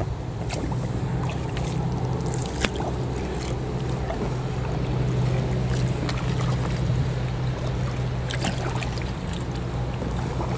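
Kayak paddle strokes: the double-bladed paddle of a two-person Itiwit kayak dipping and splashing at scattered moments over a steady low rumble.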